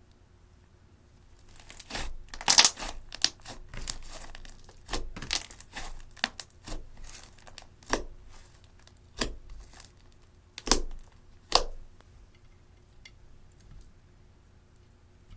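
Slime being stretched and squeezed by hand: a run of sticky crackling pops and tearing snaps that starts about a second and a half in, with a few louder pops near the end before it stops.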